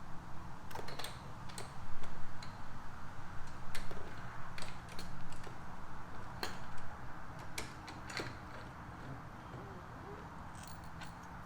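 Irregular light clicks and taps of metal hardware, a frame-slider bolt, washer and spacer, being handled and fitted onto a motorcycle frame. The clicks thin out after about eight seconds.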